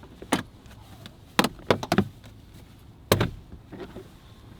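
Sharp plastic clicks and knocks as a car's interior trim panels and fittings are pried loose and handled. There is a quick cluster of knocks in the middle and one louder knock near the end.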